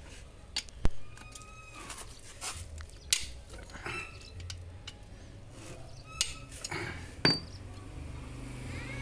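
Metal tools clinking and knocking against a dismantled car engine's block and crankshaft: several sharp separate strikes at irregular moments, the loudest about a second and three seconds in and near the end, over a steady low hum.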